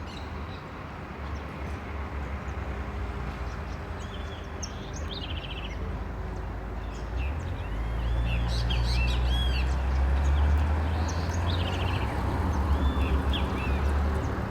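Small birds chirping in quick series of short arching notes, over a steady low rumble that grows louder about halfway through.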